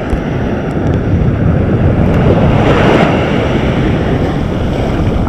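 Ocean surf washing onto the beach, a wave swelling and breaking about halfway through, with wind buffeting the microphone.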